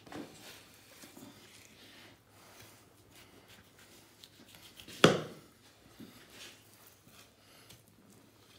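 Faint handling noises, small taps and rustles, with one sharp knock about five seconds in.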